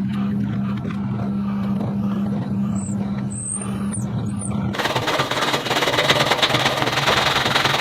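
A power tool's motor humming steadily, then about five seconds in a loud, harsh grinding noise that runs for about three seconds and cuts off suddenly, as of an abrasive tool working rusted steel.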